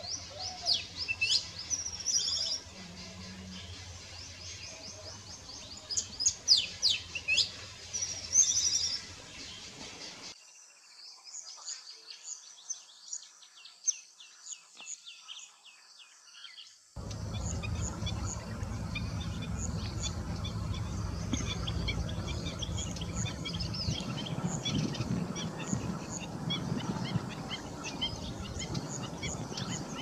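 Wild bird calls: runs of sharp chirps sweeping down in pitch. After a quieter stretch partway through, a dense, steady chatter of many small birds comes in over a low rumble.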